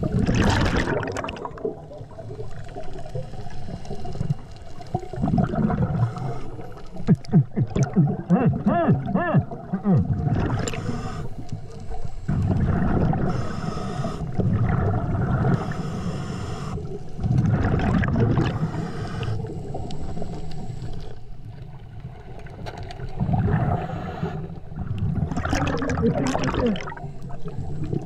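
Underwater breathing of a diver on a regulator fed by a Brownie's tankless hookah system, heard up close. Exhaled bubbles gurgle and burble past the microphone in loud bursts every few seconds, some with a wavering, warbling pitch.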